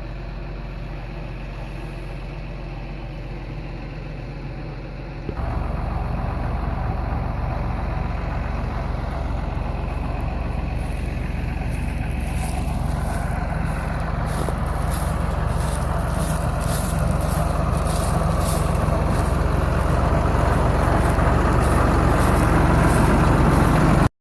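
Heavy diesel farm machinery running steadily under load. The sound jumps louder about five seconds in, and a light repeated clicking rides over it in the second half.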